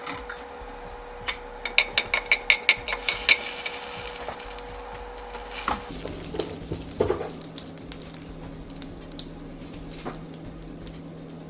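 Cumin seeds frying in a little hot oil in a pan, sizzling as they begin to splutter, while a metal spoon stirs them, clinking against the pan in a quick run of about a dozen ringing taps a second or so in.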